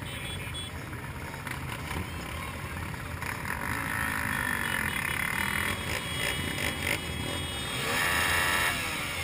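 Several motorcycle engines idling and pulling away slowly, with a steady low rumble and crowd voices mixed in; the engine noise swells briefly about eight seconds in.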